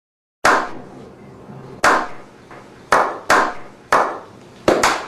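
Slow clap sound effect: single hand claps well over a second apart at first, coming faster toward the end, each with a short echoing tail.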